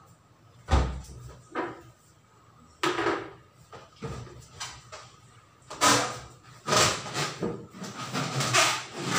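Scattered knocks, bumps and rubbing as a rubber balloon is handled, set on a plastic stool and sat on. A single low thump comes about a second in.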